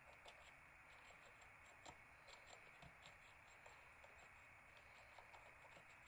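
Near silence with faint, irregular small clicks from a Multlock 8-in-1 rotor pick being worked in a lock cylinder as the inner pins are adjusted.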